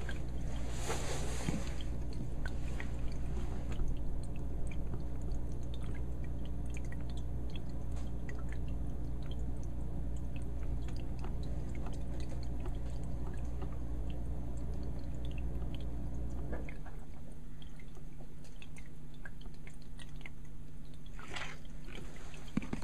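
Steady hum from a small aquarium's running equipment, with a faint trickle of water and scattered small ticks; about 17 seconds in the hum changes abruptly to a lighter, thinner one.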